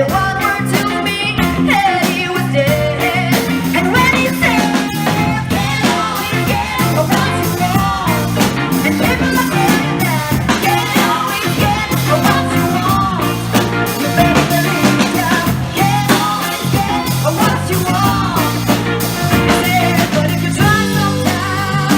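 Live band playing an uptempo blues-rock number with drums, bass, guitar and keyboard; bending lead lines run through it.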